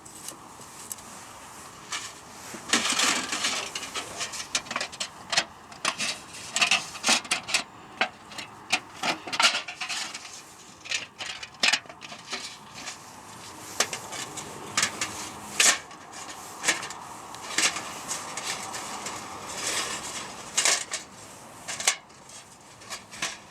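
Irregular knocks, clatters and rustling scrapes of objects being handled, with a few sharper clicks and stretches of rubbing in between.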